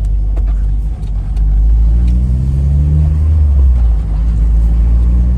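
Car engine and road rumble heard from inside the cabin. About a second in, the level dips briefly. The engine note then climbs as the car accelerates and holds steady.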